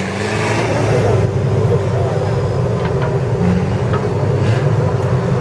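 Competition off-road trial 4x4's engine running steadily under load.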